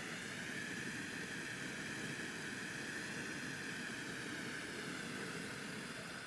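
Bengal flare burning with a steady hissing rush, starting to die down at the very end.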